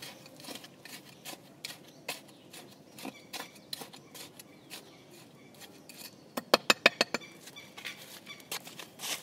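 Small hand hoe digging and scraping into garden soil around a plant, with scattered scrapes and small clinks, and a quick run of about eight sharper clinks about six and a half seconds in.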